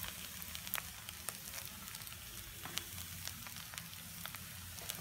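Mashed potato and vegetable mixture frying in oil in a pan: a steady sizzle with scattered sharp clicks as a metal spatula stirs it.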